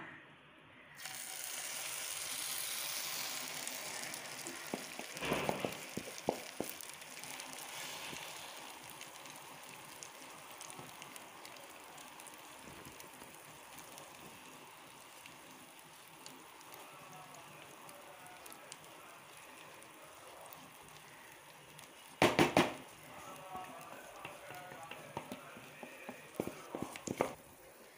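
Broccoli, capsicum and egg omelette batter hitting hot oil in a frying pan: a loud sizzle starts suddenly about a second in, then fades to a soft, steady frying hiss as the omelette cooks. Two sharp knocks cut through it, one about five seconds in and a louder one about 22 seconds in.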